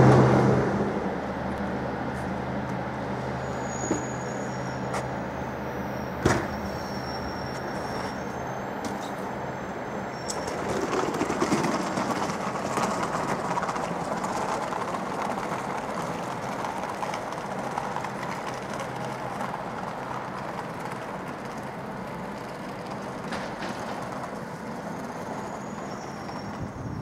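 A train running on the rails, a steady rumble of wheels with faint high-pitched squeals. There is a single sharp clack about six seconds in, and the sound swells slightly around eleven seconds.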